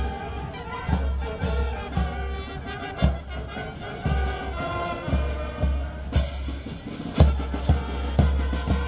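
Military brass band playing a march, with held brass and reed notes over a steady bass-drum beat about twice a second. A little after six seconds the sound brightens and the drum beats grow louder.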